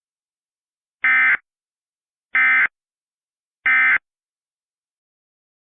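Emergency Alert System end-of-message (EOM) signal: three short, identical bursts of SAME digital data tones, about a second and a quarter apart, marking the end of the alert.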